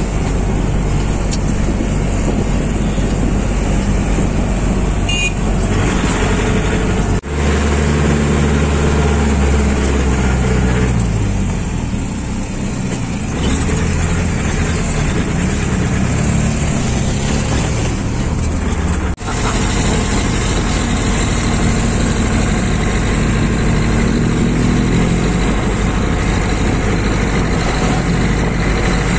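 Wind and road noise from filming on the move among large BMW GS adventure motorcycles. About 7 seconds in it cuts to a GS Adventure's engine running steadily at low revs close by, then about 19 seconds in it cuts back to the wind and road noise.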